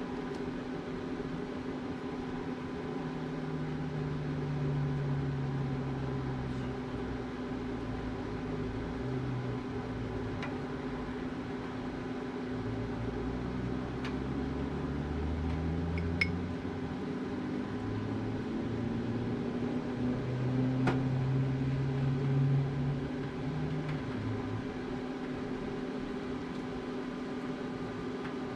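A steady mechanical hum with low tones shifting underneath, and a few light clicks as salmon on the smoker racks is brushed with maple syrup.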